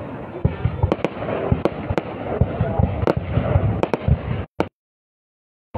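Aerial fireworks shells going off in quick succession, many sharp bangs over a dense crackle. The sound cuts out completely about four and a half seconds in.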